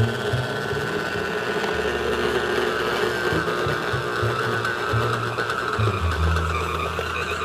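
Electric stand mixer running steadily with its mixing attachment, working flour, yeast water and salt into bread dough; a steady motor whine.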